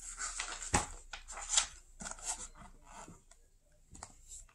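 Paper rustling as a page of a hardcover picture book is turned over, with a sharp flap of the page about a second in.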